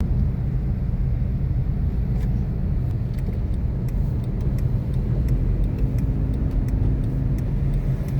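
A car running, a steady low rumble of engine and road noise.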